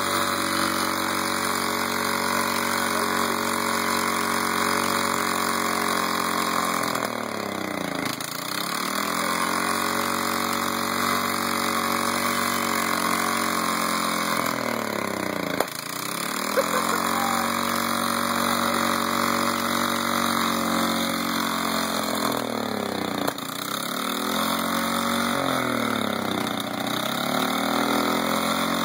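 Snapper riding mower engine running, its speed sagging and then picking back up about five times, the dips coming closer together near the end. It is being fed transmission fluid and belching thick smoke.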